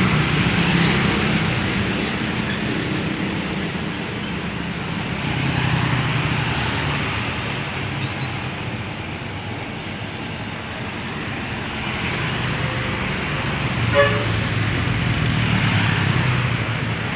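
Large bus diesel engines running amid traffic noise, with a single short horn toot about fourteen seconds in.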